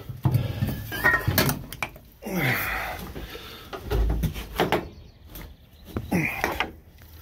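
Scattered knocks and clunks of someone climbing about the steel cab and hood of a road grader, with a few short grunts or muttered sounds between them.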